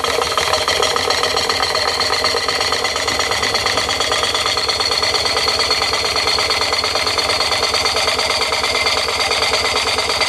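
Märklin 16051 toy steam engine running steadily at speed, a fast, even beat of exhaust and moving parts with no change in pace.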